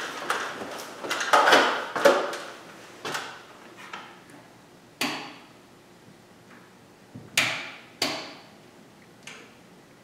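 Comfort Zone electric garage heater's control knob being turned and the unit handled, giving a series of sharp clicks and knocks spaced a second or two apart.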